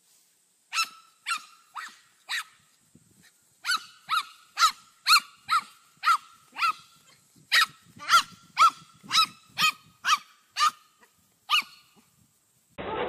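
A dog barking: about twenty short, high-pitched barks in three runs, roughly two a second, each bark rising and falling briefly in pitch.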